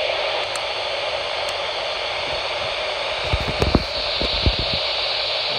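GRE PSR-100 scanner's speaker putting out a steady rushing hiss while tuned to the 49.830 MHz test signal. A few low handling thumps come about three and a half to four and a half seconds in.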